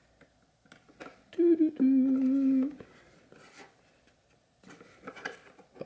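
A man hums two notes about a second and a half in: a short higher one, then a longer, steady lower one. Faint clicks of plastic come from the access point's mounting bracket as his fingers work it loose.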